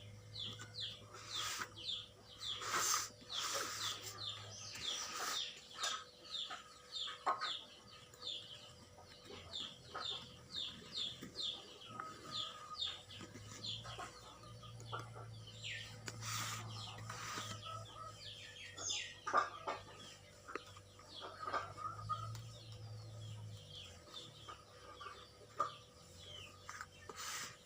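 Birds chirping in fast runs of short repeated calls, with scattered clicks and rustles and a low hum that comes and goes.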